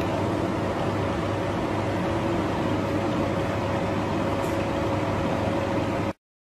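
Steady background hum and hiss, with faint held tones, cutting off abruptly near the end.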